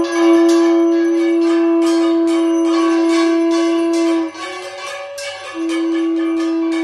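Conch shell (shankha) blown in one long, steady note that breaks about four seconds in and starts again as a second long note a little more than a second later. A bell rings quickly and steadily throughout.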